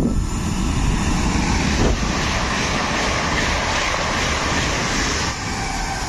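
Intercity electric multiple-unit train passing at speed: a loud, steady rush of wheels on rail and air, with wind buffeting the microphone. The sound changes abruptly about five seconds in, losing its hiss.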